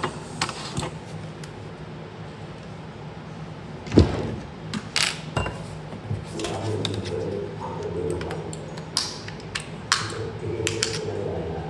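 Scattered clicks and knocks of small objects being handled, with one louder knock about four seconds in, over a steady low hum.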